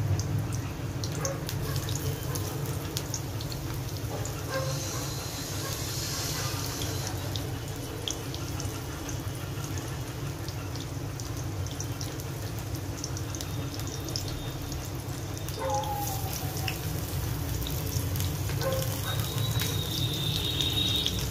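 Stuffed vegetable pieces sizzling in hot oil in a steel kadai: a steady hiss with scattered small pops and crackles.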